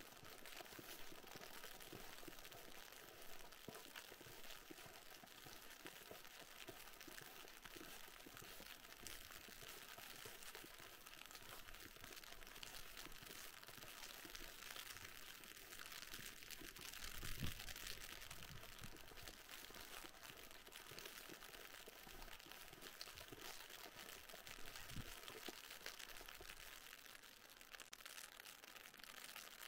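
Footsteps crunching on packed snow at a walking pace, with a steady faint hiss underneath. One step a little past halfway lands as a louder thump.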